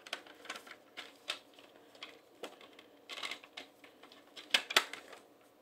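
Plastic CD jewel case being handled and opened: a series of light clicks and clacks, a cluster of them about three seconds in, and two sharper snaps near the end.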